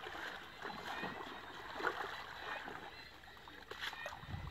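Muddy shallow water sloshing and splashing as people wade through it and work a woven basket in the water, with a few small sharp splashes.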